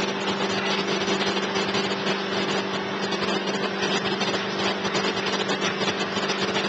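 Steady motor hum over an even rushing noise.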